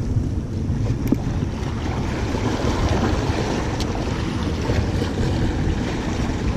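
Steady low wind rumble on the microphone over the wash of sea waves against rocks, with a couple of faint clicks.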